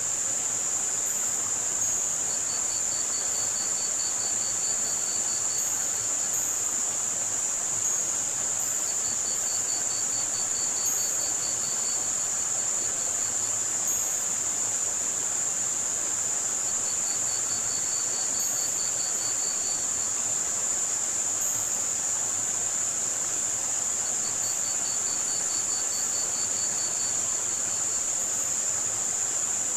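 Layered masking soundscape: a steady band of high-pitched white noise with short, very high chirps scattered over it, over a soft hiss of running water. Crickets trill in rapid pulses four times, each trill about three seconds long and roughly seven seconds apart.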